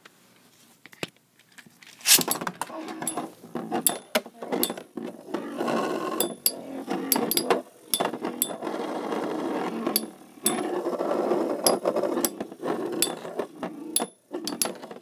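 Two Beyblade Metal Masters tops, Grand Cetus and Hyper Orso, spinning and battling in a plastic Beystadium. Starting about two seconds in, there is a steady scraping whir with many sharp clicks as their metal wheels strike each other and the stadium walls.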